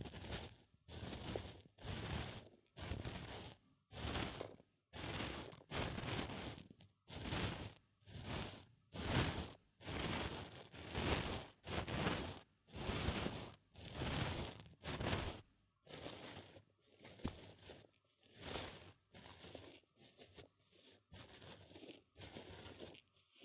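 Corn grits rustling and crunching inside the silicone ear of a binaural microphone as they are stirred, in a steady rhythm of about one stroke every 0.7 seconds. The strokes turn fainter in the last several seconds.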